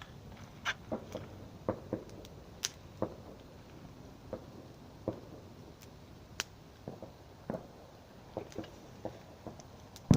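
Irregular sharp pops and clicks, roughly two a second and uneven in loudness, over a low background hiss.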